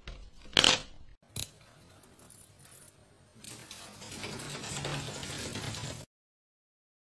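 A plastic laundry basket clatters once as a cat leaps out of it, followed by a short click. Then a few seconds of steady background noise that cuts off suddenly near the end.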